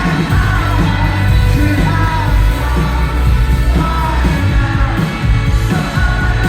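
Live rock band playing, with a sung vocal line over heavy bass and drums.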